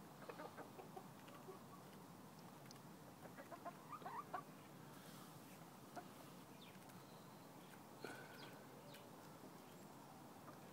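Chickens clucking faintly in short calls, with a quick run of clucks about three to four seconds in.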